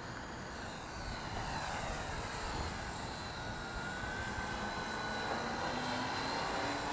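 Syma X8W quadcopter's four brushed motors and propellers whining in flight, the pitch drifting slightly as the motors change speed, over wind buffeting the microphone. It gets a little louder about a second in.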